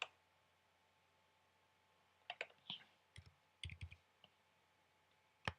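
A few keystrokes on a computer keyboard as form fields are typed into: short, sharp clicks in small clusters, about two to four seconds in and once more near the end, with near silence between.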